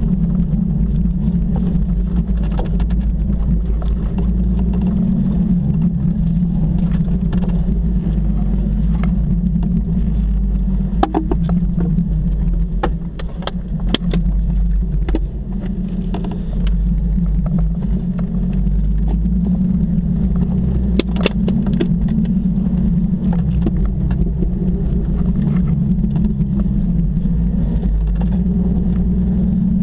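Jeep engine running at steady low revs while driving over a rough dirt track, with a few sharp knocks and rattles scattered through. The engine eases off briefly near the middle.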